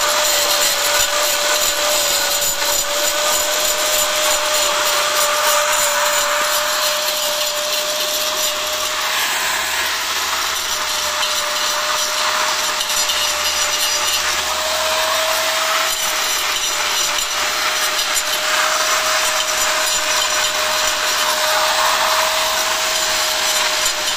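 Angle grinder cutting a groove along a row of red clay bricks: a steady motor whine under the harsh hiss of the disc grinding through the brick.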